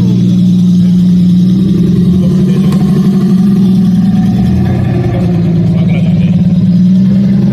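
Car engine running steadily while driving, a constant low drone that shifts slightly about five seconds in.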